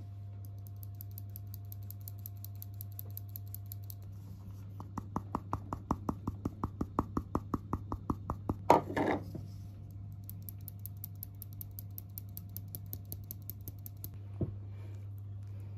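Handled metal mesh sieve of flour being shaken and tapped over a glass mixing bowl: a fast, faint ticking, then from about five seconds in a run of louder taps, about five or six a second, ending in one sharp clink of metal against glass near nine seconds. A steady low hum lies underneath.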